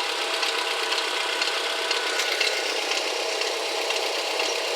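Volkswagen Gol 1.0 8-valve four-cylinder engine idling with a steady hiss and a light, rapid ticking: the strange engine noise the owner is pointing out.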